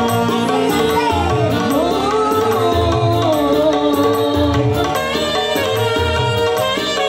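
Live dangdut music: women's voices singing a melody over a single-keyboard (organ tunggal) backing with a steady hand-drum rhythm.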